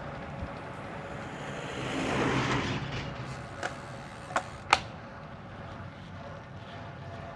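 Riding noise from a bicycle on the road, with a steady faint hum. A swell of noise rises and falls about two seconds in, followed by three short sharp clicks.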